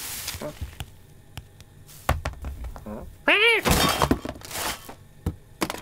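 Cartoon sound effects of a cat rummaging in grocery bags: bag rustling, knocks and thuds as groceries fall to the floor. About three seconds in, a short cat cry that rises and falls comes just before a loud crash of items spilling out.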